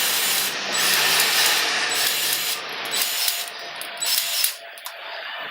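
Powered grease gun pumping grease into the U-joint grease fittings of a new front driveshaft. It runs steadily with a motor hum for about three seconds, then in shorter bursts.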